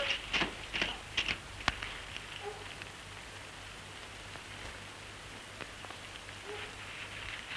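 Steady hiss and crackle of a 1930s optical film soundtrack, with a few sharp clicks in the first two seconds.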